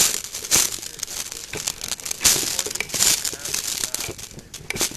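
Irregular crunching and rustling close to the microphone, a short noisy burst every half second or so.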